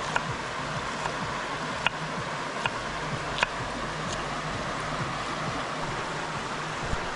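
Steady rush of flowing river water, with several sharp crackling pops over it, the loudest about three and a half seconds in.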